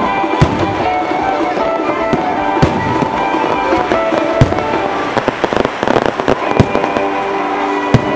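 Fireworks going off: several sharp bangs a second or two apart, with a spell of crackling about five to six seconds in, over music that plays throughout.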